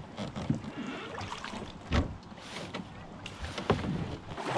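Water splashing and swishing around a plastic kayak hull as it is paddled, with a couple of sharp knocks, about two seconds in and again near the end.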